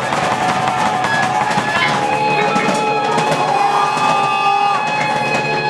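Rock band playing live: guitar and a drum kit with regular cymbal and drum hits under sustained held notes.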